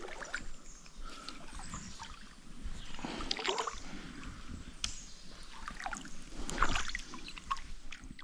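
Irregular water splashing and sloshing, as of someone wading through a shallow creek, with louder splashes about three seconds in and again near seven seconds.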